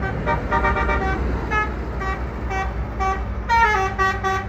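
Basuri telolet musical bus horn playing a tune in short tooting notes, then a longer held chord from about three and a half seconds in, over the low rumble of the bus engine running.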